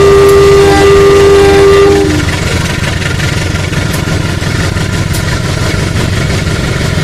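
Battery-powered toy train running around its track: its electronic two-tone horn sounds for about the first two seconds, over the steady buzz and rattle of the small motor and wheels.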